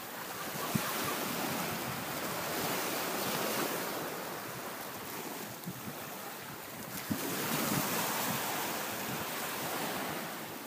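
Outdoor wind and surf: a steady hiss that swells and eases over a few seconds at a time.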